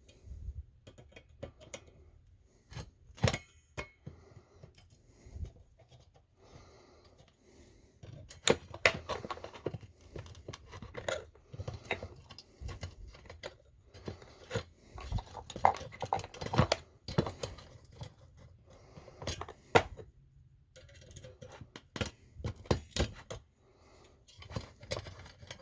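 Irregular small clicks, scrapes and rattles of a screwdriver and wires being worked at a vintage Brother sewing machine's electrical terminals, as the old cord's wires are loosened and pulled free.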